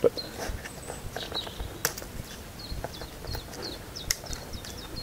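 A small bird calls over and over in short, high, downward chirps. Sharp clicks and rustles come from a knife and leather sheath being handled, the sharpest right at the start and another a little before two seconds in.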